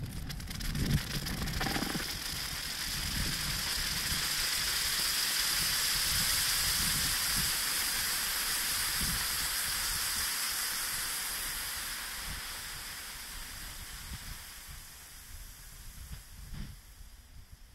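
Hot, freshly cast aluminum ingot sizzling and hissing on a block of ice as the ice melts and turns to steam beneath it. The hiss swells over the first few seconds and then slowly dies away.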